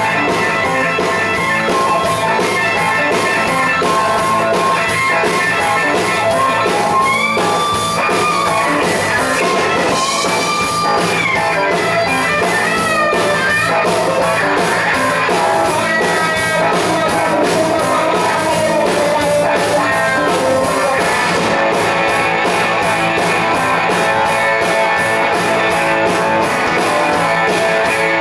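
Live rock band playing: electric guitar over drums, with bent guitar notes sliding up and down about a quarter of the way through.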